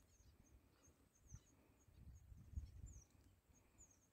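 Near silence with faint, high-pitched bird chirps repeating every fraction of a second, a few of them sliding down in pitch, over soft low rumbles.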